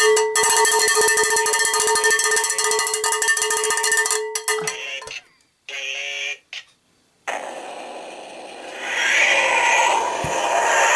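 A cowbell struck rapidly over and over, ringing on one pitch for about four and a half seconds before stopping. A short pitched sound follows a moment later, then a steady noisy wash that swells near the end.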